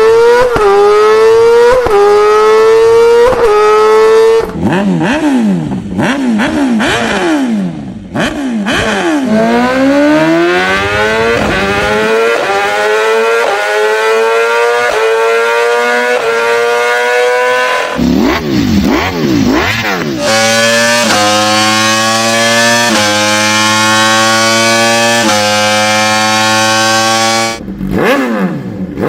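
Superbike engines at full throttle, climbing through the gears: each gear the pitch rises, then drops back at a quick upshift. In a few stretches rising and falling pitches cross as bikes pass or shift down, and there is a long, high-revving run near the end that cuts off.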